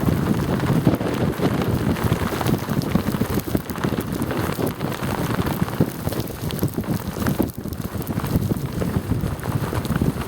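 Wind pants flapping rapidly in a windstorm, a dense fast crackle of fabric over strong wind buffeting the microphone.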